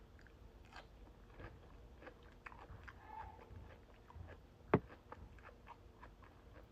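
Chewing cucumber salad: a run of small crunches and clicks, with one louder crunch about two-thirds of the way through.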